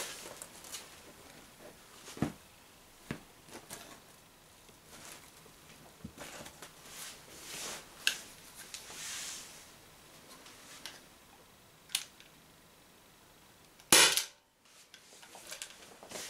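Small clicks of an Umarex HDP50 .50-calibre CO2 pistol being handled and readied, then a single sharp shot about fourteen seconds in. The pistol's CO2 charge is running low, and the shot velocity is dropping.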